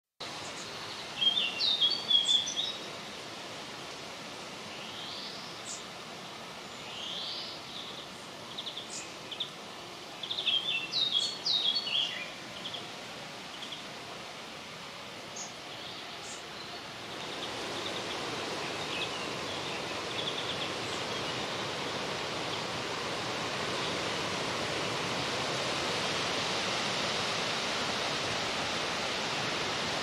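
Wind rustling through the leaves of willow trees, with small birds chirping in short bursts over the first half. A little past halfway the wind turns stronger and the leaf rustle becomes a louder, steady hiss that builds slowly toward the end.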